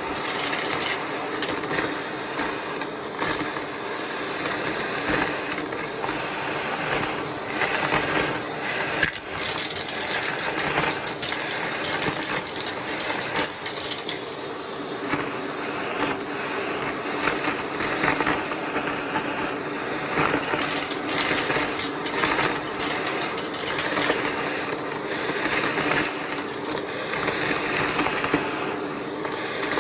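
Vacuum cleaner running with its crevice tool, a steady motor hum with irregular crackling and rattling as crunchy debris is sucked up through the tool.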